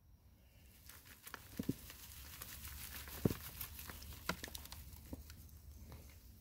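Hands digging through damp potting soil and pulling potato plants and roots out of it: faint rustling and crumbling with many small scattered crackles and ticks, and a few sharper knocks.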